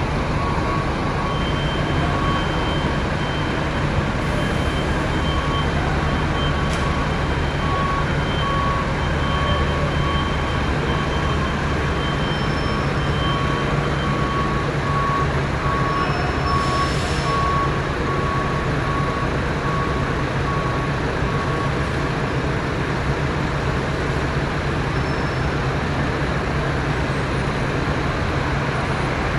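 Scania K400 bus diesel engine running steadily at low speed as the double-decker maneuvers, with a reversing alarm beeping about once a second until about three-quarters of the way through. A brief hiss of air comes a little past halfway.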